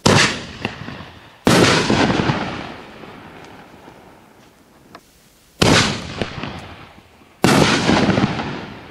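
4-inch canister firework shells (Sky Painter's The Kraken) going off: four sharp booms in two pairs, about a second and a half to two seconds apart within each pair, each trailing off over a second or so.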